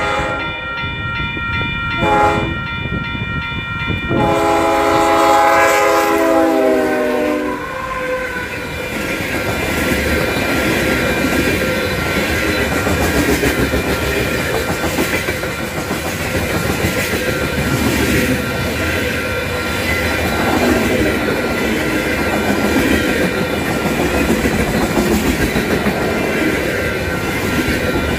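Union Pacific freight train led by a GE ES44AC sounds its horn for the grade crossing, ending in a long blast that drops in pitch as the locomotive passes about seven seconds in. The freight cars then roll by with steady wheel clatter and rumble, while the crossing bell rings throughout.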